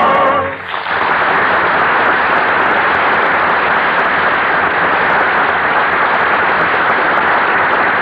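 A sung finale note with vibrato ends about half a second in, and a studio audience breaks into sustained applause that runs on steadily.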